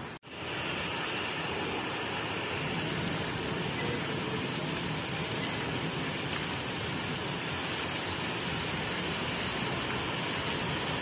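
Heavy rain falling in a steady, even hiss, with a momentary dropout just at the start.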